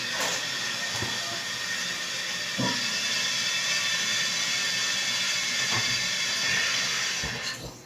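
Western Pottery Aris toilet tank refilling: a steady hiss of water through the fill valve, cutting off suddenly near the end as the valve shuts.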